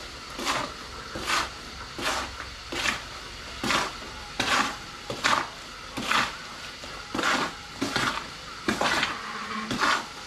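A hand tool scraping through cement mix in even, rhythmic strokes, about one a second.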